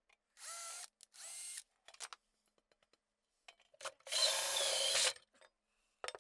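Cordless hand drill started in two short bursts, its motor whine rising each time, then a hole saw cutting into sheet metal for about a second with a loud, harsh grinding screech. The hand drill spins too fast for the hole saw, and the cut is hard going.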